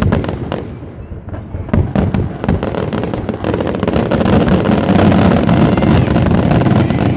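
Display fireworks: aerial shells bursting overhead with bangs and crackle. Sparse bangs in the first second or two build into a rapid, continuous barrage that is loudest over the last few seconds.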